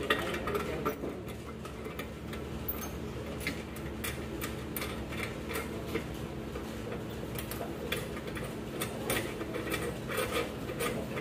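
Irregular metal clicks and taps as the safety screws clamping an autoclave lid are turned and tightened by hand, over a low steady hum.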